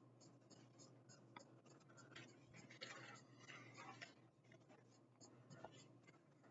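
Near silence with faint scattered rustles and light clicks of hands handling a small plastic action-figure part.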